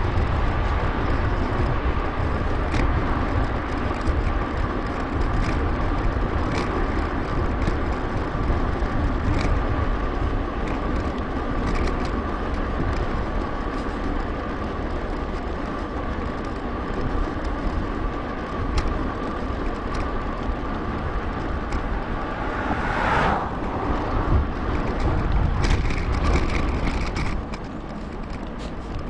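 Riding noise from a mountain bike on a paved path: wind rushing over the microphone and tyre rumble, with a steady thin whine and occasional short clicks from bumps in the surface.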